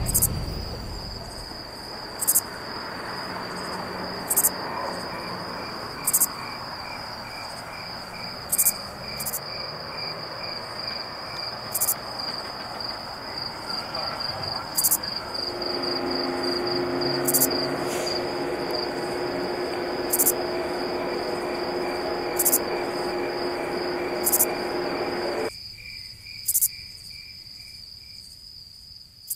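Insects chirping in a continuous fast high trill, with short sharper chirps every second or two. Partway through, a steady hum of several low tones joins in, then cuts off suddenly a few seconds before the end, leaving the trill.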